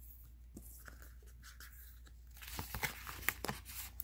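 Thick cardboard pages of a lift-the-flap board book being turned and handled. It is faint at first, then turns into a flurry of papery scrapes and clicks in the second half.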